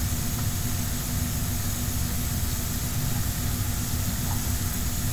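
Steady hum and hiss of a running fan, with a low rumble and a faint steady tone, unchanging throughout.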